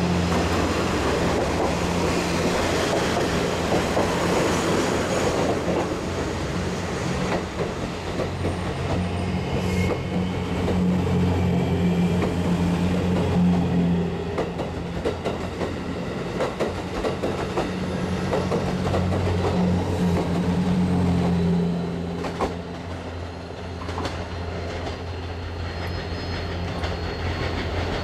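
Diesel railcar running past on the adjacent track: a steady diesel engine drone with wheel clicks over rail joints and a little wheel squeal. The drone fades noticeably near the end.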